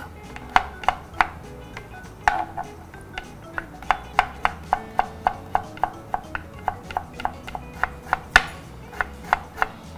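Kitchen knife chopping raw potato on a wooden cutting board: sharp knocks of the blade on the board, a few scattered at first, then a steady run of about three to four a second as the potato is diced fine. Background music plays under it.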